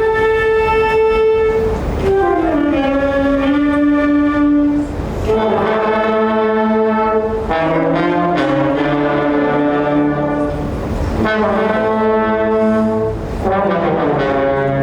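High school symphonic band playing, brass to the fore in sustained chords that change every second or two, with a downward slide into a lower chord about two seconds in.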